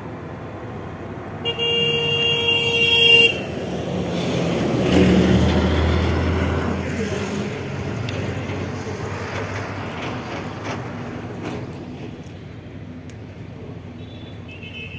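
Vehicle horn sounding for about two seconds, then engine and road noise that swells about five seconds in and slowly fades.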